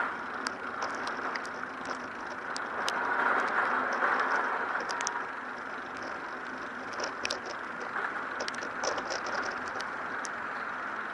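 Rainy city-street ambience: a steady wash of rain and traffic noise with scattered sharp ticks, swelling for a couple of seconds a few seconds in.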